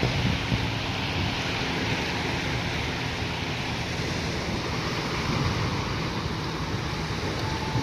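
Small waves breaking and washing over a rocky, pebbly shore, a steady surf hiss, with wind rumbling on the microphone.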